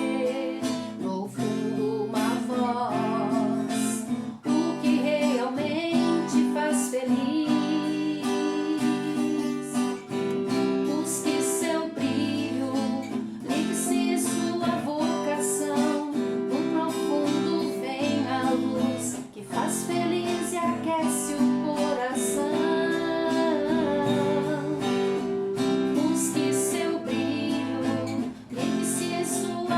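Music: an instrumental passage of a gospel song, with strummed acoustic guitar under a bending melody line.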